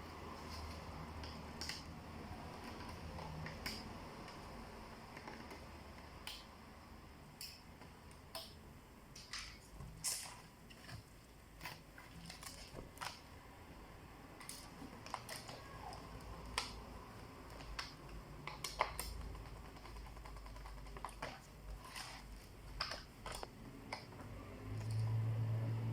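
Small irregular clicks and ticks of tools, screws and plastic parts being handled while a Lenovo IdeaPad Z500 laptop is taken apart, with a louder low handling rumble near the end.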